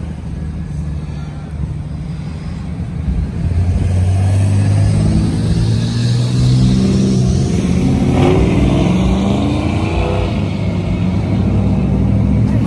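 LS-swapped Pontiac Bonneville's V8 rumbling, then getting louder about three seconds in and accelerating away, its engine note rising in pitch.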